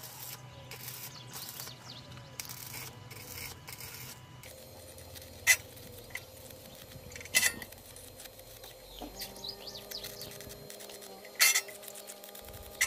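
Rasping strokes on metal, like filing or wire-brushing, about six of them over the first four seconds, followed by four sharp metallic knocks spread over the rest.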